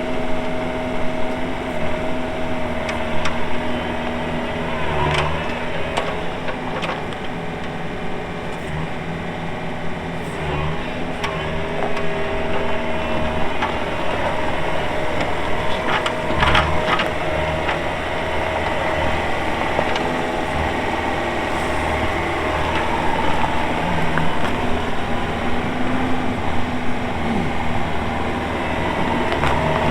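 Yanmar diesel engine of a YB401W wheeled mini excavator running steadily under operation, with three short knocks spaced a few seconds apart.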